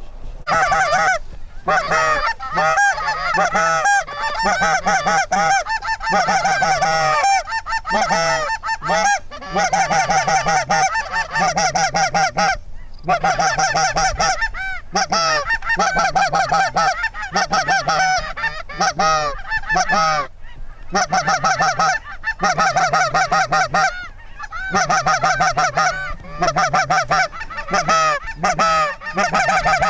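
Goose honking, loud and almost continuous: runs of quick, repeated honks lasting a few seconds each, broken by short pauses.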